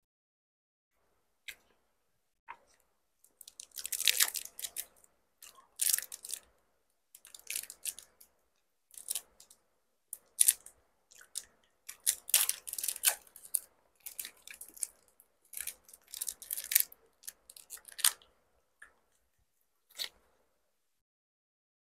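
Close-miked chewing and mouth sounds of someone eating bánh ít lá gai, a sticky glutinous-rice cake, in irregular bursts with short pauses between bites.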